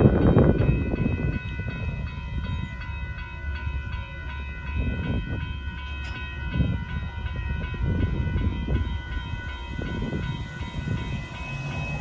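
Railroad crossing bells ringing steadily over the low rumble of a long intermodal freight train that has just passed. The rumble is loudest at the start, then weakens and rises and falls as the train moves away.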